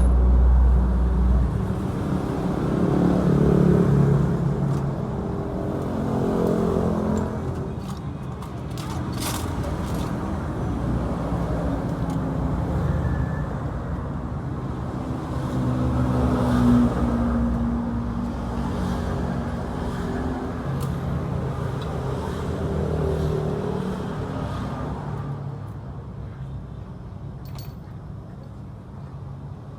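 Yamaha Exciter 135 motorcycle engine running, its revs rising and falling, quieter near the end.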